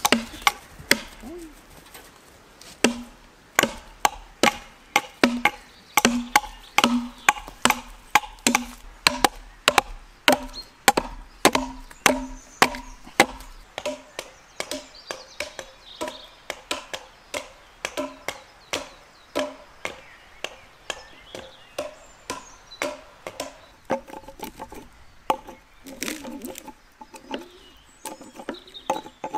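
Hatchets chopping into wooden log posts, trimming and rounding off their ends. A steady run of sharp knocks, each with a short ringing note, comes about two a second. They grow fainter and more spaced out about halfway through.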